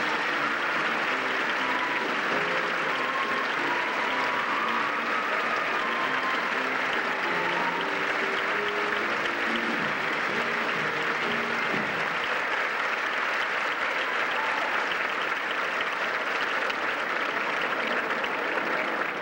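Audience applauding steadily after a show choir's performance. Under the clapping, short instrumental notes play for about the first twelve seconds, then stop.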